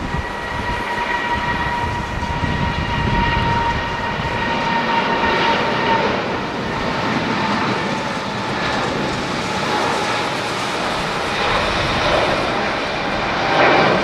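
Twin turbofan engines of a Boeing 777 at takeoff thrust during the takeoff roll: a steady jet roar with a whine at two pitches that fades about six seconds in.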